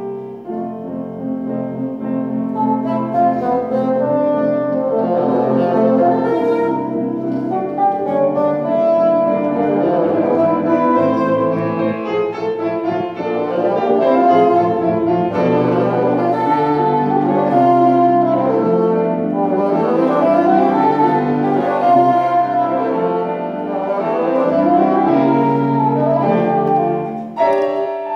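Bassoon playing a passage of moving notes with grand piano accompaniment.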